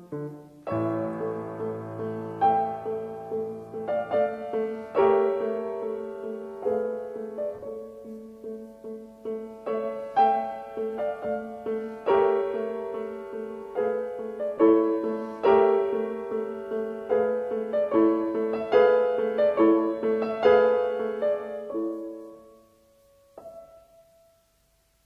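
Background piano music, a melody of struck notes over a steady low note, fading out near the end.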